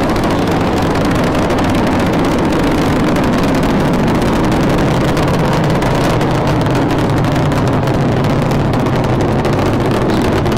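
Space Shuttle Discovery's rocket engines roaring at liftoff: a loud, steady, deep rumble with a rough hiss over it, holding level without a break.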